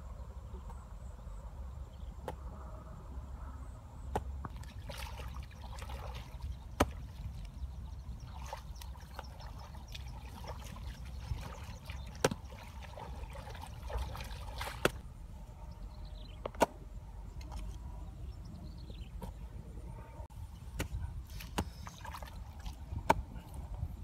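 Hoe blade striking and prying into damp clay soil while a pit is dug: irregular sharp knocks a few seconds apart over a steady low rumble.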